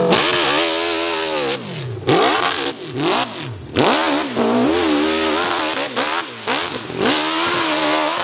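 Motorcycle engine revving hard up a hill climb, its pitch repeatedly rising and falling as the throttle is opened and chopped, with several brief cut-outs.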